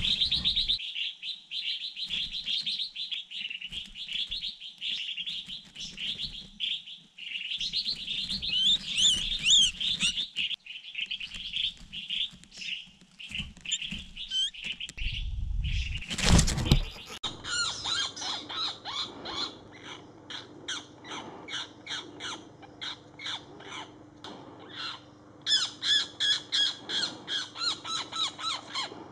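A nestling's rapid, high-pitched distress chirping as a hawk grips it in the nest, for about the first half. A brief loud noise follows. After it a bird gives a steady series of short harsh calls, about two a second.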